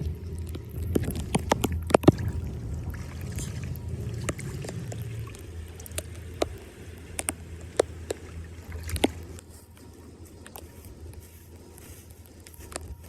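Floodwater sloshing and gurgling, heavier for the first five seconds or so, with sharp scattered clicks and knocks.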